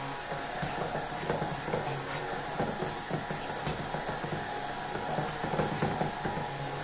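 Small electric kitchen mixer running steadily as it whips yogurt cream into a thick spreadable cream, with a steady motor hum and a rapid clatter of small clicks.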